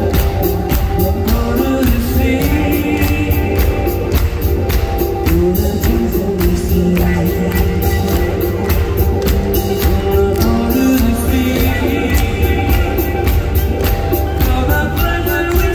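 Live band music: a sung lead vocal over nylon-string acoustic guitar and keyboards, driven by a steady, quick percussion beat.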